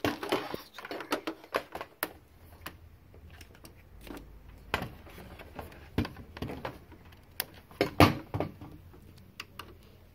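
Irregular clicks and knocks from a DVD/VCR combo player being handled as it is switched on, the loudest about eight seconds in.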